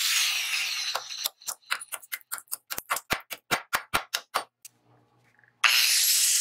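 Angle grinder with a cut-off disc cutting into a wooden block held in a bench vise, stopping about a second in. Then a hammer taps rapidly at the workpiece, about six quick knocks a second for some three seconds. After a short pause the grinder bites into the wood again near the end.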